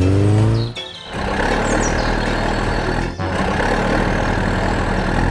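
A vehicle engine revving with rising pitch, cut off about a second in, then an engine running steadily under a rough rumbling noise, with a brief break about three seconds in. Music sits faintly underneath.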